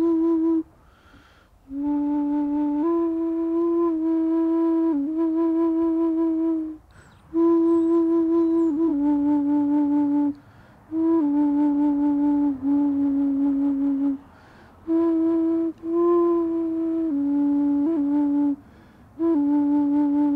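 Carved wooden Māori flute (taonga pūoro) played in long breathy held notes that step between two or three low pitches and waver slightly. The notes come in phrases of a few seconds, broken by short pauses for breath.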